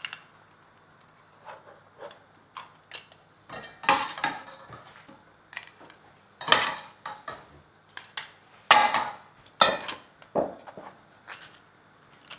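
Metal hand-held potato ricer clicking and clanking as boiled potatoes are pressed through it, with a slotted spoon knocking against the ricer and the pot while its cup is refilled. Irregular light clicks, with several louder clatters in the middle.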